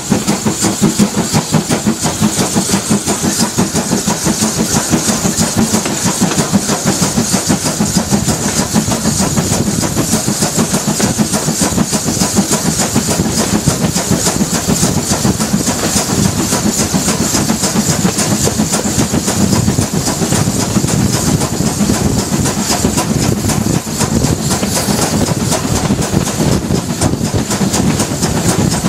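GWR 52xx-class 2-8-0 tank steam locomotive running under steam, heard close up from its cab: a quick, steady beat of exhaust chuffs mixed with the clatter of wheels over the rails and a constant hiss.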